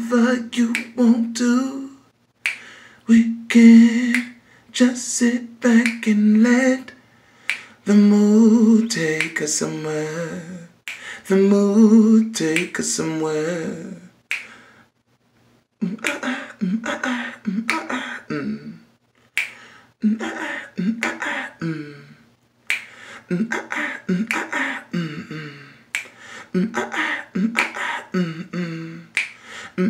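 A voice singing unaccompanied, holding and bending long notes, with finger snaps keeping the beat.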